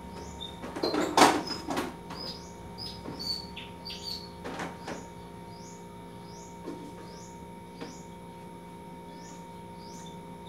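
Dishes clattering and knocking in a sink as they are washed, loudest about a second in and again near the middle, over a steady electrical hum. Short high chirps repeat about twice a second throughout.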